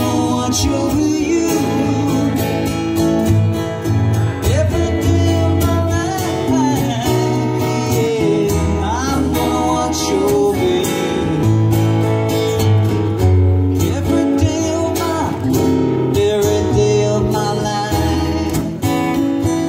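Two acoustic guitars strummed together with a man singing, played live on stage.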